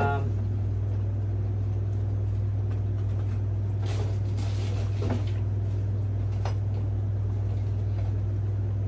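A few faint knocks and rustles of items being moved in a kitchen cupboard, over a steady low hum.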